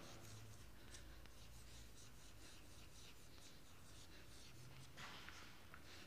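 Chalk writing on a blackboard: faint, scattered scratches and soft taps as words are written out.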